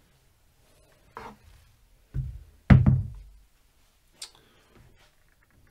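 A few separate knocks and thuds: a short one about a second in, then two heavy low thuds, the second the loudest, with a brief ringing tail, and a sharp click near the end.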